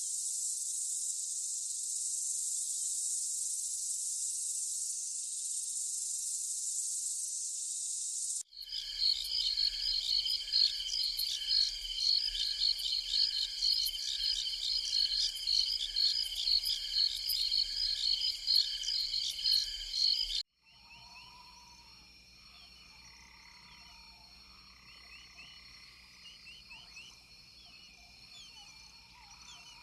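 Rainforest animal chorus in three abrupt sections. First a steady high insect drone, then a loud, evenly pulsing chorus of frogs and insects calling about once a second, then a much quieter bed of insect tones with scattered short chirps and whistles.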